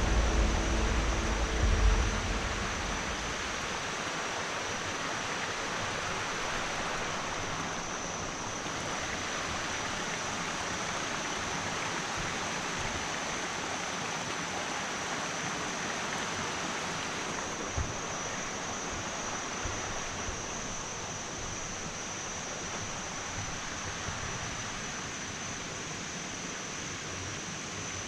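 Stream water rushing steadily over rocks at a forest waterfall, an even unbroken rush. Wind rumbles on the microphone for the first couple of seconds.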